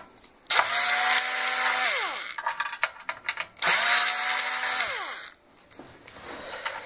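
Cordless drill-driver backing screws out of an oil-filled radiator's plastic end housing: two runs of motor whine, each spinning up, holding steady for about a second and a half, then winding down, with a few clicks between them.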